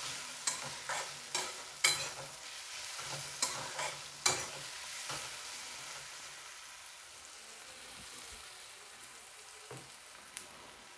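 Metal spatula stirring and scraping a thick onion-tomato masala around a metal kadai, with sharp scrapes and clinks through the first five seconds or so, over the steady sizzle of the spices frying in oil. After that only the sizzle remains, growing gradually quieter as the masala roasts.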